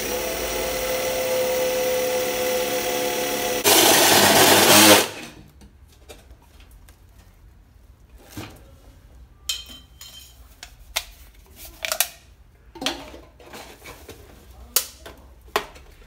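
Cordless drill driving a hole saw into a thin sheet-metal lid: a steady motor whine for about four seconds, louder and rougher for about a second more, then it stops. After that, scattered light clicks and metal knocks as the cut lid and parts are handled.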